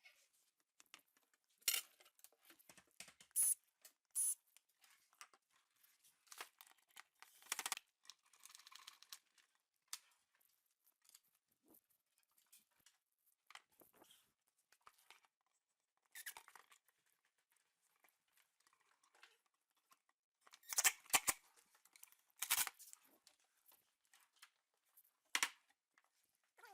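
Faint, scattered clicks, scrapes and rustles from handling a cabinet drawer and its drawer face, with a louder cluster of scrapes about three quarters of the way through.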